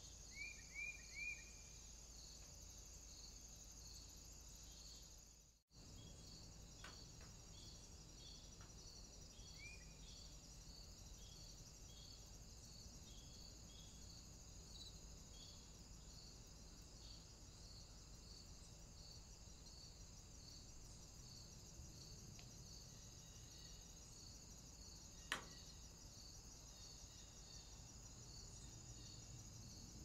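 Faint, steady insect chirping, cricket-like, repeating at a regular pulse, with three quick high bird chirps near the start and one more about ten seconds in. A single sharp click sounds late on.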